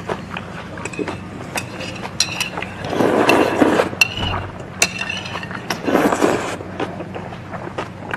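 Metal chopsticks clicking against a small ceramic dish, with two louder stretches of slurping buckwheat noodles (kotdeungchigi) about three and six seconds in.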